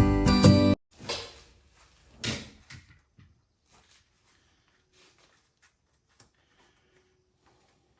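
Acoustic guitar music cuts off under a second in, then a few knocks and rattles of parts being handled, the loudest about two seconds in, followed by faint scattered clicks.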